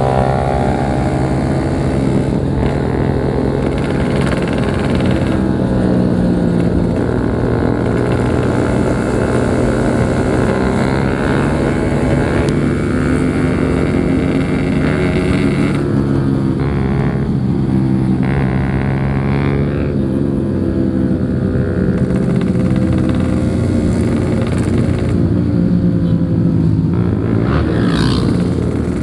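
Yamaha RX-King's single-cylinder two-stroke engine running under way on a motorcycle ride. Its note holds fairly steady, with slow rises and dips as the throttle changes.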